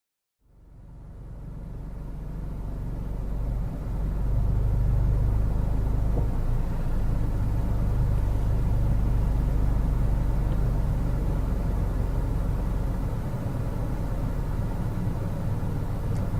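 Steady low rumble of a car, heard from inside the car with its windows down; it fades in over the first few seconds and then holds level.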